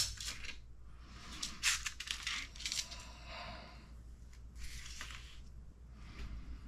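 Small metal screws and hardware rattling and clicking in a plastic parts tray as the tray and kit parts are handled, in a cluster of light clicks from about one to three seconds in and a softer rattle near five seconds.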